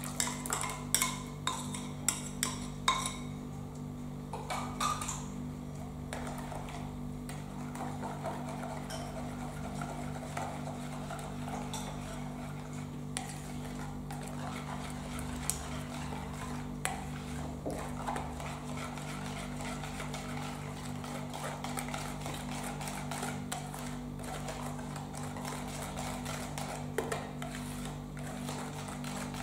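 A wire balloon whisk clicking sharply against a plastic mixing bowl several times in the first few seconds, then whisking melted chocolate and butter into beaten eggs and sugar with a soft, steady swishing.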